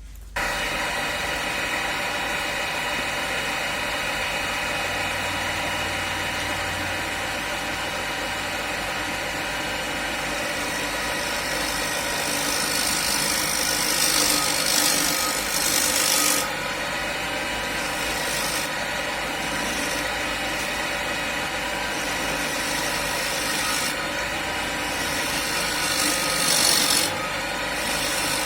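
Homemade wood lathe running at steady speed with a constant motor whine, while a hand-held homemade gouge cuts a spinning square oak blank. The scraping cut swells twice, around the middle and again near the end, as the gouge bites into the blank's corners.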